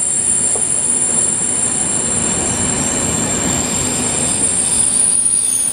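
Passenger train coaches running along the track, heard from an open window: a steady rumble of wheels on rail with a thin, high, steady squeal above it.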